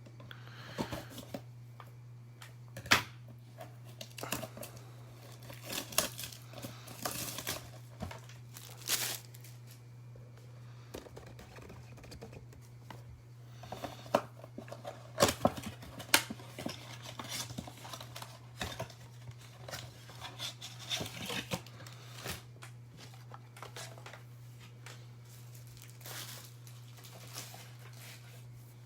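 Plastic wrapping on a sealed box of basketball trading cards being torn and crinkled in short, irregular bursts with sharp clicks of handling, over a steady low electrical hum.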